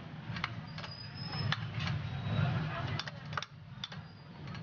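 A string of irregular sharp metal clicks and clinks as a spanner and steel parts are handled while fitting a small cross-slide vise table.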